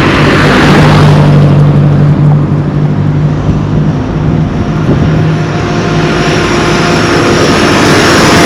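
A motor vehicle's engine running close by with a steady hum, as road traffic passes, swelling at the start and again near the end.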